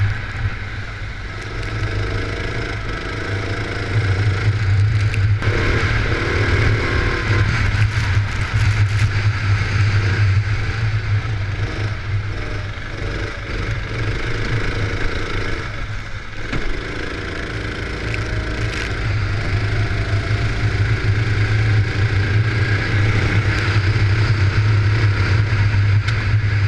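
Racing kart engine heard from the driver's helmet at speed, its note climbing along the straights and dropping back as the driver lifts off for the corners, several times over, with a steady rush of wind noise.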